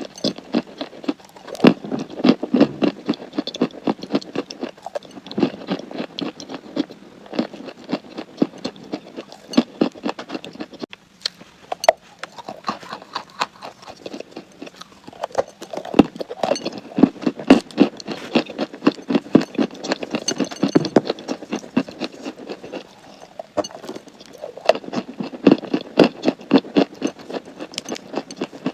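Crunchy chalk being chewed close to the microphone: rapid crackling crunches in bursts of several seconds, with short lulls between them.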